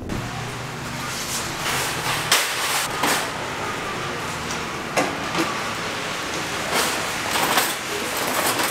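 Shopping cart rolling and rattling, with several sharp knocks as it goes over bumps, over a steady hiss.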